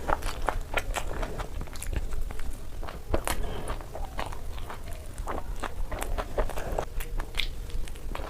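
Close-miked chewing of noodles: a run of wet mouth clicks and smacks, several a second.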